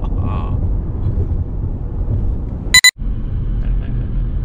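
Steady road and engine rumble inside a moving car's cabin. Near three seconds in, a short, loud electronic beep sounds, and the audio drops out for a split second before the rumble resumes.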